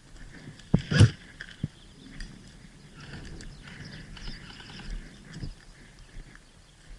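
A few sharp knocks about a second in, the second the loudest, followed by several seconds of shuffling and rustling with small clicks.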